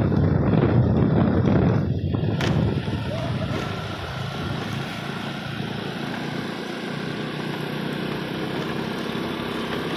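Motor scooter engine running steadily while riding along a paved path, louder for the first couple of seconds and then quieter and even.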